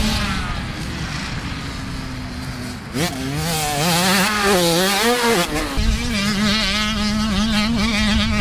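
Dirt bike engines on a motocross track. One holds a fairly steady pitch, then about three seconds in another is heard revving, its pitch rising and falling quickly as the throttle is worked. The sound settles back to a steady note near the end.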